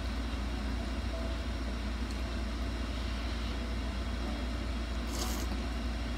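Steady low hum of a window air conditioner running, with a short slurp of noodles about five seconds in.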